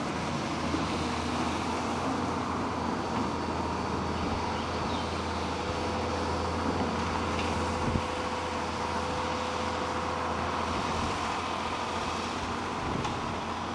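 Tracked excavator's diesel engine running steadily as it works, with a faint steady whine above the engine note and one short knock about eight seconds in.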